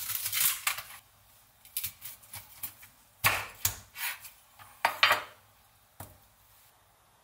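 Chef's knife chopping through cooked corn on the cob and striking an end-grain wooden cutting board. The chops are sharp and irregularly spaced, with the loudest at about three and five seconds in.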